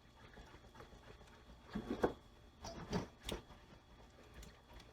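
A few faint, short clicks and taps from handling a vanilla extract bottle and kitchen utensils, clustered around the middle.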